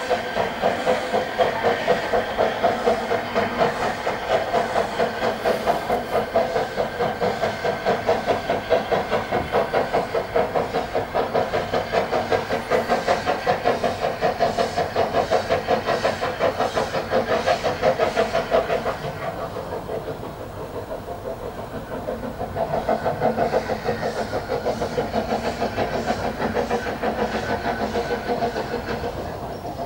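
Narrow-gauge steam locomotive working a train, its exhaust beating in a steady rhythm of about two beats a second with a hiss of steam. The beats drop away briefly about two-thirds of the way through, then pick up again and fade near the end.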